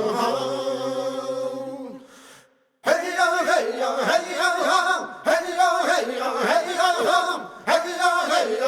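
Unaccompanied tribal-style vocal chanting: a long held note that fades out about two seconds in, then, after a brief pause, a run of short, rhythmic chanted calls.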